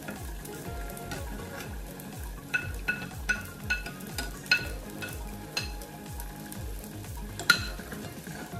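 String beans pushed off a plate into a sizzling pot of pork adobo with a wooden spatula: a run of sharp taps, each ringing briefly, as the spatula and plate knock against the pot, with one loudest knock near the end. The sauce sizzles steadily underneath.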